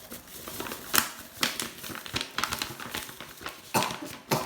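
Plastic cake-mix packet crinkling and crackling as it is squeezed and emptied, in irregular crackles with a sharp one about a second in.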